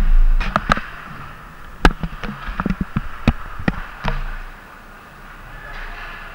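Ice hockey sticks and puck knocking on the ice: a string of sharp, irregular clacks for about four seconds over the rink's steady hum.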